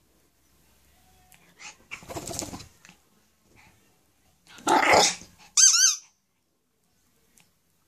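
Shih Tzu barking twice at a ball held above her: a shorter bark about two seconds in and a louder one about five seconds in. A brief high squeak with a wavering pitch follows right after.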